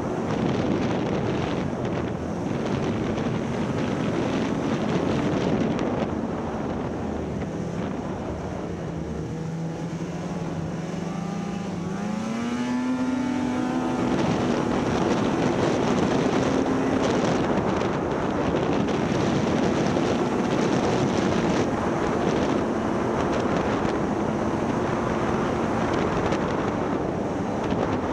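Snowmobile engine running under way, with wind noise on the microphone. Its pitch sits low for a few seconds, then climbs steeply about twelve seconds in as the sled speeds up, and it runs on at the higher pitch.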